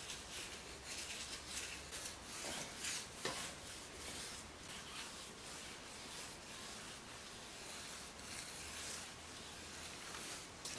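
A small detailing brush rubbing tyre dressing into a rubber tyre sidewall: faint, irregular brushing strokes.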